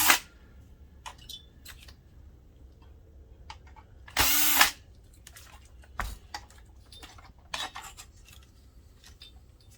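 Electric screwdriver spinning briefly, about four seconds in, with a motor whine that dips in pitch, as screws come out of the projector's blower fan, amid light clicks of plastic parts being handled.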